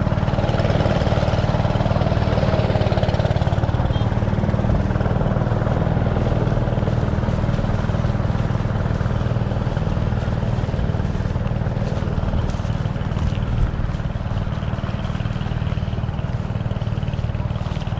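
Engine of rice-processing machinery running at a steady speed, a constant low drone with a noisy mechanical rush above it.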